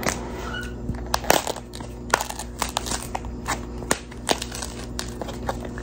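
The shell of a fruit being cracked and broken open: a run of sharp, irregular cracks and crackles, several a second.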